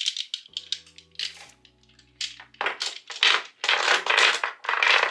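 A makeup bag of small oil and perfume bottles being rummaged through: short clinks and knocks of the bottles, then a few loud scraping rustles about half a second each in the second half.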